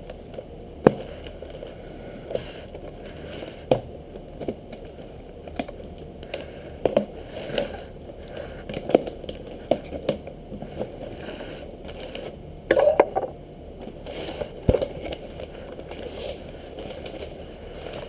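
A cardboard shipping box and its packaging being opened and handled: scattered sharp clicks and knocks with short scraping and crackling rustles, and a longer burst of rustling about two-thirds of the way through.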